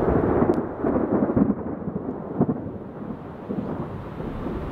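Thunder rumbling and rolling, loudest in the first second and a half with a further surge a little later, then dying away.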